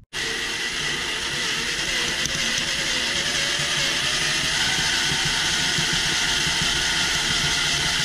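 Electric drill running steadily under load, its bit boring into an aluminium block clamped in a vise and throwing off curled chips.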